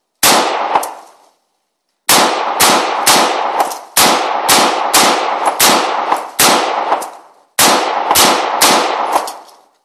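AR-15 rifle fired semi-automatically in a rapid string of loud shots, about two a second, each trailing off in echo. Two shots come first, then after a short pause about fifteen more in quick succession.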